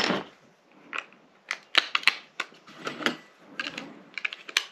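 Small hard plastic parts being handled and snapped together by hand: a run of sharp clicks and short rattles, with a cluster of quick clicks near the end.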